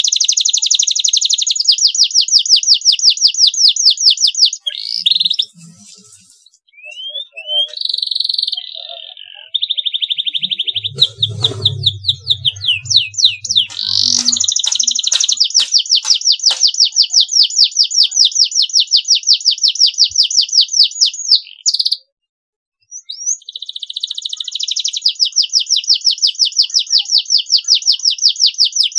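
Canary singing fast rolling trills in several long phrases, with short pauses between them.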